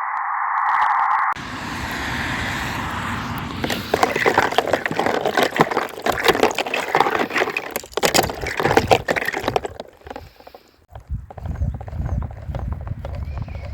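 A sound-effects sequence: a short burst of narrow hissing noise, then water splashing and bubbling with many small irregular clicks. It briefly drops away near the end and comes back lower and rumbling.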